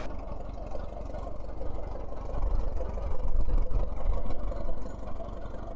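Emerson-Brantingham Big 4-20 tractor's inline four-cylinder engine running steadily as the tractor drives, louder for a couple of seconds in the middle.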